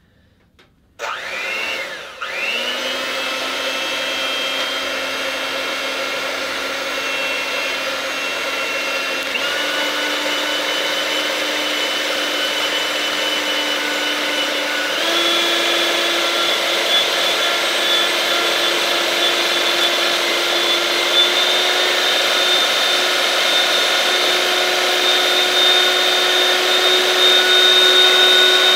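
Electric hand mixer whipping cream in a glass bowl. The motor starts about a second in and settles into a steady whine. Its pitch steps up twice, about a third of the way and about halfway through, then creeps slightly higher.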